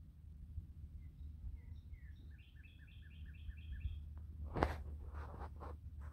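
A songbird sings a short phrase: a few rising notes, then a quick run of about seven repeated two-pitched notes. About four and a half seconds in, it gives way to several loud rustling, crunching strokes.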